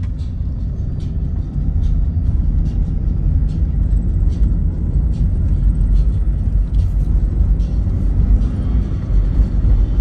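Steady low rumble of a car's tyres and running gear on a paved road, heard from inside the moving car.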